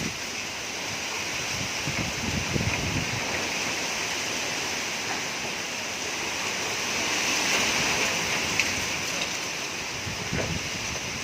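Strong wind gusting through trees, a steady rush of thrashing leaves that swells about seven seconds in, with one short sharp tick soon after.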